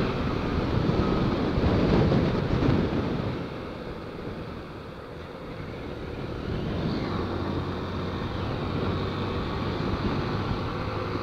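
Wind rushing over the microphone with a small motorcycle's engine running underneath while riding on the road. It is louder for the first few seconds, eases off around four seconds in, and then holds steadier.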